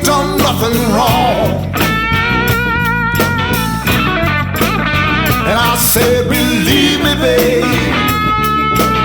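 Blues-rock music: lead guitar lines with bends and vibrato over a steady bass and drum beat.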